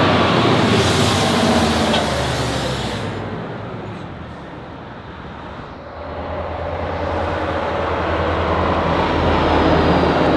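Diesel engine of a Tatra 815 fire truck running loud as the heavy truck drives close past, then fading away over a few seconds. From about six seconds in, the engine of the next convoy truck grows steadily louder as it approaches.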